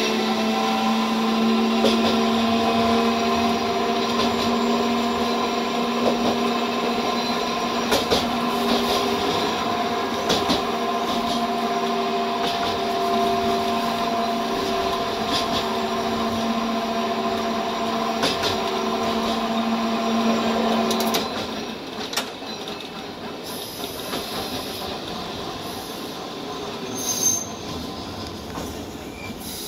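Hankai Tramway streetcar running along the track, heard from inside at the front: a steady whine from the running gear with scattered clicks of the wheels over the rails. About two-thirds of the way through, the whine stops and the running noise turns quieter.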